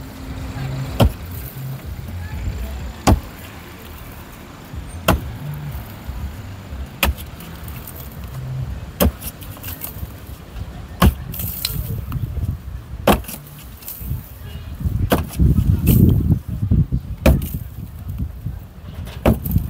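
Sledgehammer striking a concrete block wall, sharp blows at a steady pace of about one every two seconds, ten in all. A low rumble builds up between the blows about three-quarters of the way through.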